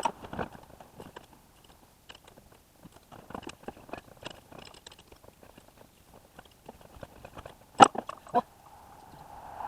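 Scattered light clicks and clinks of hand tools and metal parts being handled, with a sharp click at the start and another, louder pair about 8 seconds in.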